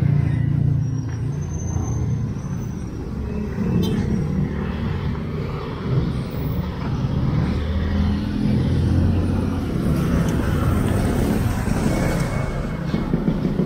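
A car engine running close by at low speed, a steady low rumble throughout.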